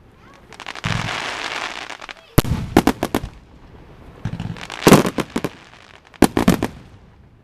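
Aerial fireworks shells bursting in clusters of sharp bangs, three times about a second and a half apart, with a crackling hiss between the bangs.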